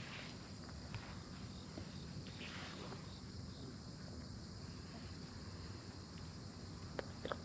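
Faint outdoor ambience of insects chirring steadily, with a couple of faint clicks near the end.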